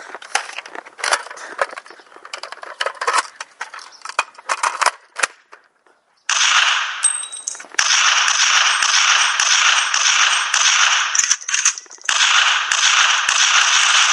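Scattered sharp clicks and pops, then after a short pause about six seconds in, loud, sustained rapid-fire gunfire that crackles on with two brief breaks.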